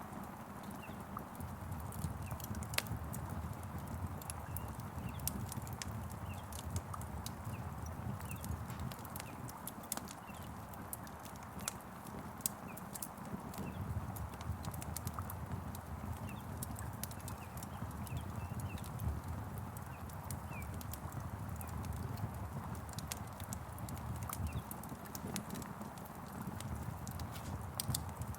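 Wood fire crackling: frequent sharp pops and snaps over a steady low rumble, with faint short bird chirps scattered through.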